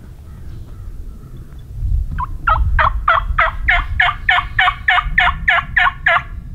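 Turkey yelping: a run of about fourteen evenly spaced yelps, about three a second. The run starts about two seconds in, with the first notes softer.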